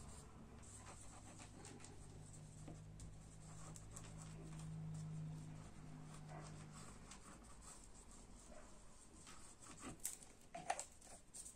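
Near silence: faint handling of card and a liquid glue bottle as glue is laid on paper, with a few light clicks near the end.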